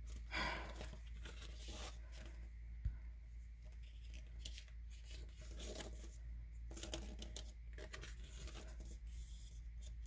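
Photobook pages being turned by hand: scattered soft paper rustles and flicks, a few clustered together, over a faint steady low hum.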